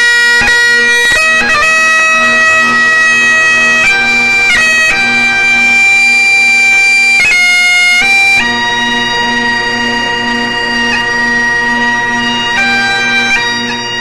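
Scottish Highland bagpipes played loud and close: a continuous drone under a chanter melody of long held notes, with quick grace-note flicks at the changes between them.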